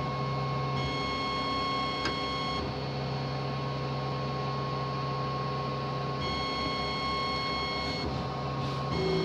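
A 40 W laser cutter cutting a shape out of a thin wooden board, its head's drive motors giving a steady high whine with overtones that drop out and come back a few times as the head's movements change, over a steady hiss.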